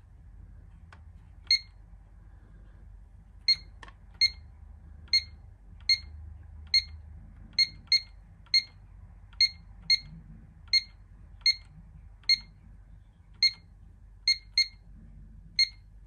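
Pyronix LCD alarm keypad beeping as its buttons are pressed during zone programming: about eighteen short, high single beeps at an uneven, keying pace.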